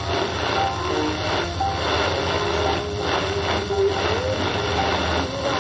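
Shortwave radio receiver tuned to a weak 4750 kHz broadcast: heavy static and hiss with a steady hum, and faint wavering music just audible through the noise. The signal is poor because of bad shortwave propagation.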